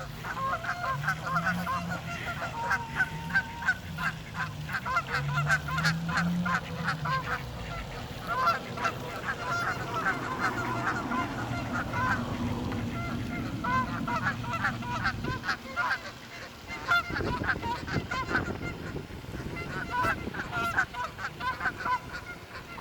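Canada geese honking, a rapid run of short calls from several birds that goes on throughout.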